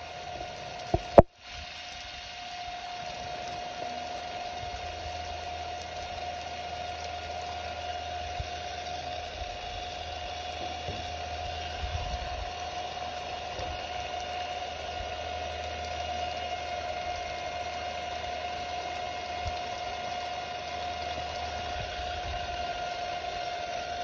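Water spray pattering steadily onto a Ryobi impact driver and the wet pavement around it, over a steady mechanical hum. A single sharp click about a second in.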